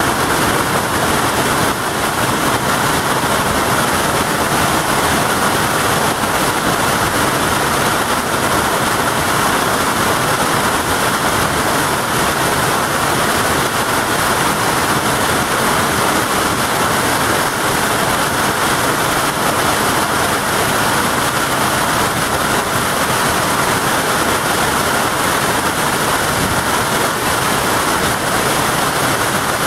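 Hailstorm: hail and heavy rain pelting down in a dense, unbroken rush of noise, with no gaps or single strikes standing out.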